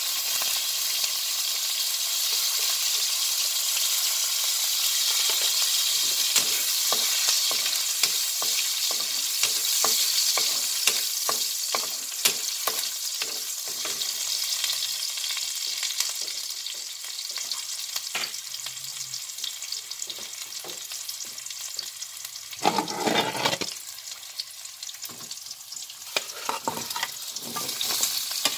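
Chopped onion and garlic sizzling in hot oil in a wok, stirred with a metal ladle that clicks and scrapes against the pan, with a brief louder noise about three-quarters of the way through. Near the end the sizzling grows louder as squid is tipped into the wok.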